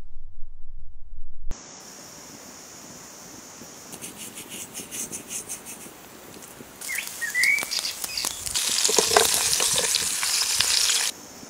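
Steaks and vegetables sizzling in a hot pan, loud and steady over the last few seconds before cutting off abruptly. A bird chirps briefly just before. A low rumble at the start cuts off suddenly.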